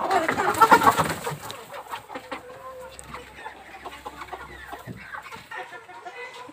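Domestic chickens clucking in a coop, loudest in the first second and a half, then softer scattered clucks.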